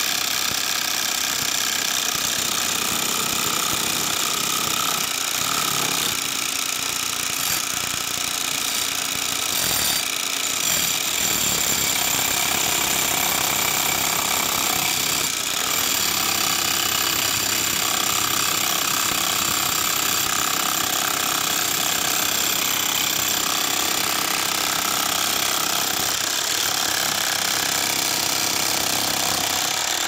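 Corded electric demolition hammer chiselling into a concrete slab: a continuous, rapid, steady hammering.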